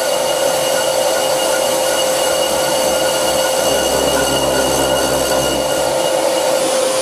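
Lathe insert turning a cast iron brake disc at 170 RPM, a steady ringing chatter tone over the cutting noise, with a deeper hum swelling in the middle. The chatter is leaving a very wavy surface finish, and the owner thinks the insert is losing its edge.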